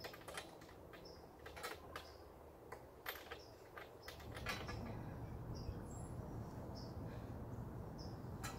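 Scattered light clicks and knocks of hand work on a walk-behind lawn mower's engine, with a bird giving short high chirps about once a second. A low steady rumble comes up about halfway through.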